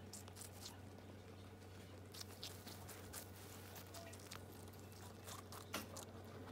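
Two guinea pigs chewing watermelon: faint, irregular crunching clicks of their bites into the wet flesh, over a low steady hum.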